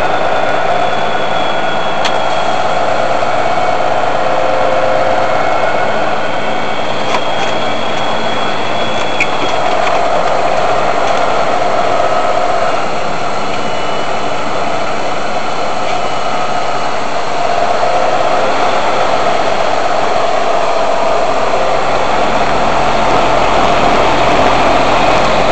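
Semi truck's diesel engine running steadily while pulling a loaded eight-axle oil tanker grossing about 145,000 lb, heard close from the hood.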